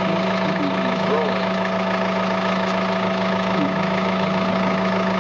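Steady idling of a vehicle engine, an even hum at constant pitch.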